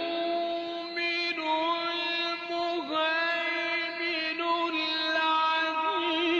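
Melodic Qur'an recitation by a male reciter in the drawn-out mujawwad style. He holds one long vowel after another, with gliding turns about one and a half and three seconds in and quavering ornaments near the middle and the end.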